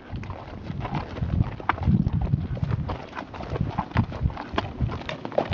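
Horses' hooves clip-clopping at a walk on a dry dirt and gravel trail, several horses in a line, their hoof strikes falling irregularly.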